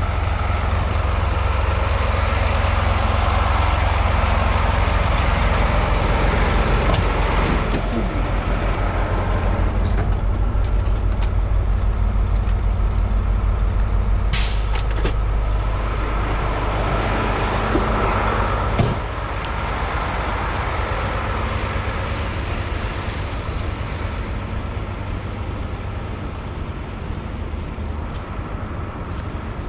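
Semi truck's diesel engine running with a steady low rumble and a brief sharp hiss of air near the middle. A knock a little past halfway, after which the low rumble eases.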